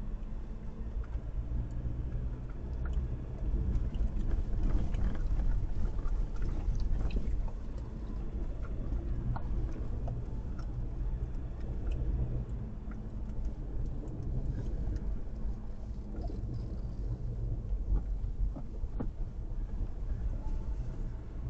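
A motor vehicle driving, its engine a steady low drone, with knocks and rattles throughout.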